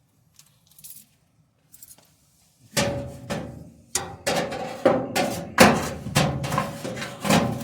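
Repeated sharp metallic knocks with a ringing tone, starting about three seconds in and coming roughly one to two a second: a replacement part being knocked into place on a gas clothes dryer.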